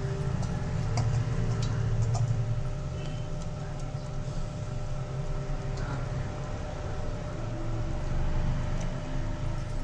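Steel pot of masala water with prawns at a rolling boil over a stove on high heat: a steady low rumble with a few faint bubbling ticks.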